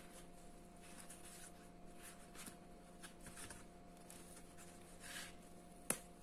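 Faint rustling and rubbing of a Leatherman nylon sheath being handled, then one sharp click near the end as its metal snap button pops open.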